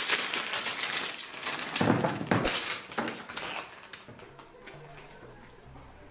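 Crinkling, crackling packaging being handled and pulled open by hands, loud for about three and a half seconds and then dying away.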